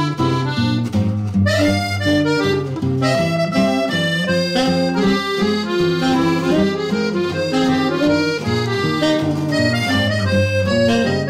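Background music: an instrumental tune of held melody notes that change several times a second, with no singing.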